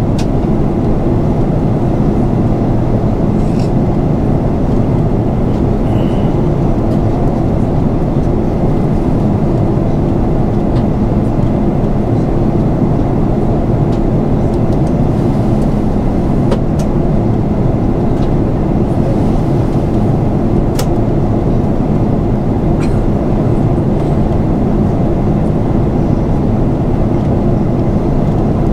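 Steady drone of airflow and engines heard inside the cabin of an Airbus A340-300 in flight, with a few faint clicks.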